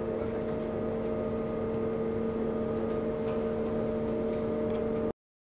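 Steady mechanical hum of an icebreaker's machinery on deck: a drone of several unchanging tones over a low rumble, with a few faint clicks. It cuts off suddenly about five seconds in.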